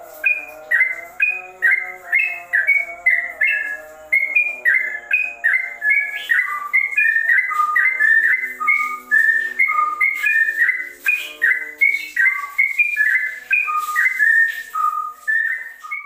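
Caged yellow-vented bulbul (trucukan) singing a fast, unbroken run of short whistled notes, two or three a second, jumping between higher and lower pitches: the rolling 'ropel' song that fanciers liken to a straw-headed bulbul's (cucak rawa).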